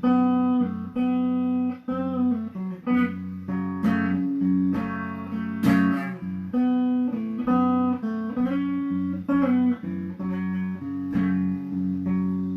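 Instrumental music led by guitar, with plucked notes and chords changing every second or so and no singing.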